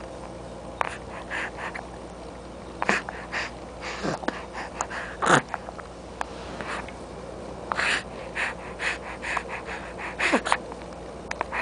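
A young baby's short noisy breaths and little vocal sounds, in about fifteen scattered bursts, a few of them sliding down in pitch.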